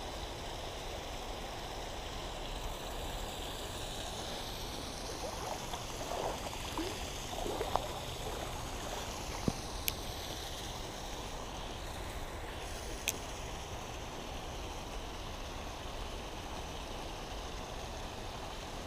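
Steady rushing of a shallow creek flowing over a gravel bed, with a few faint handling rustles and three short clicks partway through.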